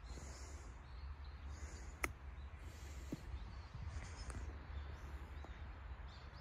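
A single sharp click of a golf club striking the ball about two seconds in, over a steady low rumble of outdoor background noise.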